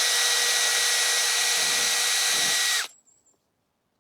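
Electric drill running at a steady speed, boring a small hole through the dried shell of a gourd. The motor stops about three seconds in, its whine sliding down as it winds off.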